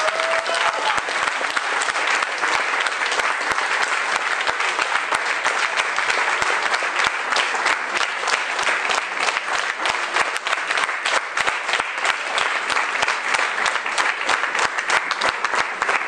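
Audience applause: steady, dense clapping from a full hall, sustained at an even level throughout.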